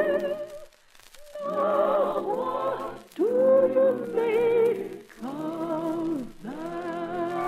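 Vocal music: a held, wavering sung note ends within the first second, then a choir sings a few long sustained chords, each one sliding up into place.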